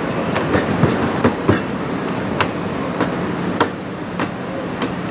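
Thin roti dough for a Thai banana pancake being stretched and slapped by hand on an oiled steel counter: a string of irregular sharp slaps over a steady background hiss.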